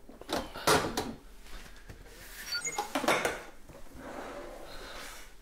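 Clicks and knocks of kitchen items being handled on a counter. The loudest comes about three-quarters of a second in, and a cluster follows around three seconds in.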